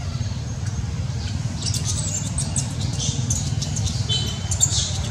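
Infant long-tailed macaque squealing in a string of short, high-pitched cries from about two seconds in, typical of a baby monkey crying while being weaned. A steady low rumble runs underneath.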